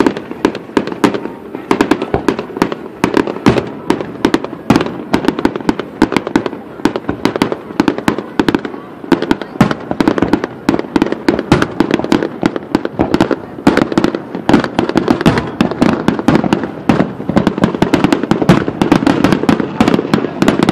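Aerial fireworks display: a fast, unbroken string of bangs and crackles from shells bursting, starting abruptly and running on without a pause.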